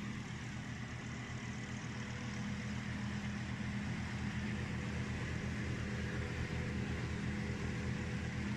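Engine of a piece of farm machinery running steadily at an even speed, with a low pulsing hum.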